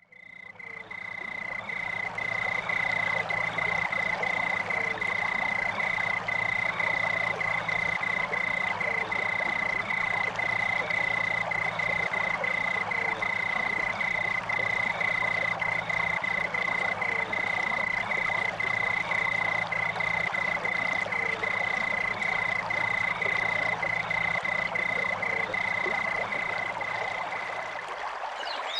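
Frogs calling in a continuous high trill that pulses slightly, over a low steady hum. It fades in over the first couple of seconds, and the hum stops near the end.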